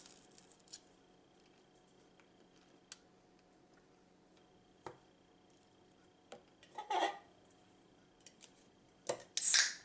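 Eating sounds of pan-fried taquitos: mostly quiet with scattered light clicks and taps, a short crunch about seven seconds in and louder crunching near the end.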